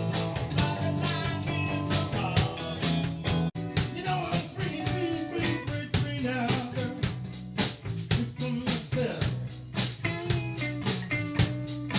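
Live band playing: electric guitars, electric bass and a drum kit with a steady beat.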